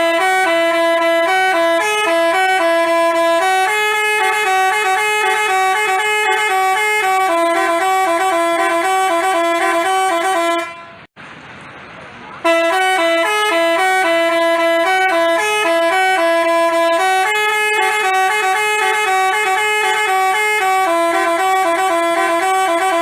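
Basuri telolet horn, a multi-note musical horn, playing a tune in quick stepped notes. The tune plays twice, with a break of about two seconds near the middle.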